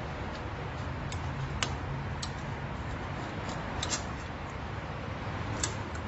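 About half a dozen light, sharp clicks and ticks of crimped ring terminals and wire ends being handled against a UPS's screw terminal block, over a steady low background hum.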